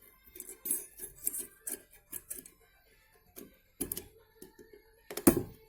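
Small metallic clicks, taps and scrapes of a hub bearing retaining ring (snap ring) being worked into its groove in the steering knuckle, with a louder metal knock about five seconds in.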